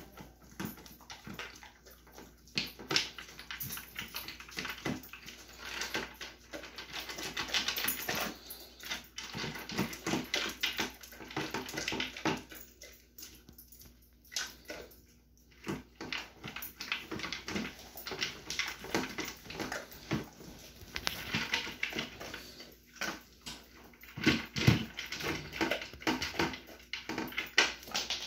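Dog eating from a slow feeder bowl: a fast, irregular run of clicks and clatter as the food is worked around the bowl, with a few short lulls.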